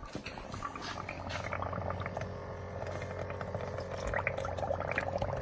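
Water bubbling and sloshing in a bucket as hands reach in for a live fish, over the steady hum of a small battery-powered aquarium air pump.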